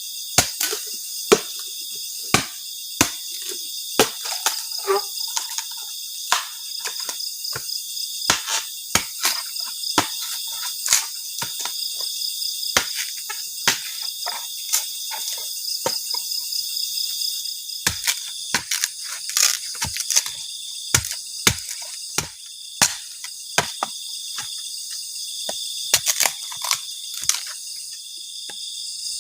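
A steady chorus of crickets and other insects, with sharp clicks and knocks scattered irregularly through it, about one a second.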